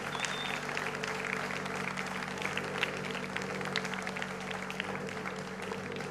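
Audience applauding, many hands clapping at once, with steady held musical tones underneath.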